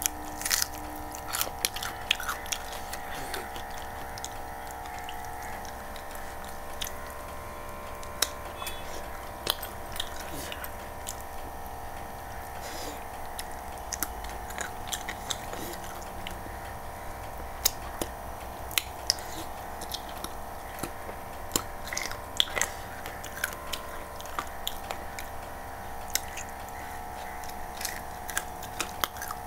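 Close-miked chewing of rice and chicken curry eaten by hand, with many short wet mouth clicks and smacks scattered irregularly, over a steady background hum.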